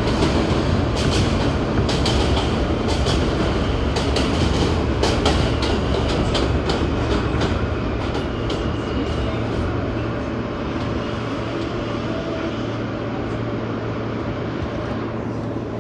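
Inside a New York subway car, the wheels clack over rail joints with a steady rumble. The clacks thin out and the rumble eases over the first several seconds as the train slows into a station, leaving a steady low hum from the car at rest.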